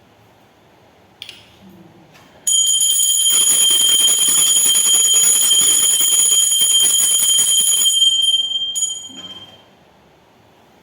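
Brass temple bell rung rapidly for about five seconds, its clapper striking over and over with a steady high ring that then fades away. A short knock comes just before the ringing starts.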